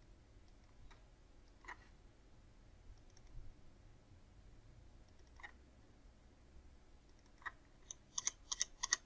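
Faint clicks of a computer mouse or keyboard being worked: a few single clicks spaced seconds apart, then a quick run of about eight clicks near the end.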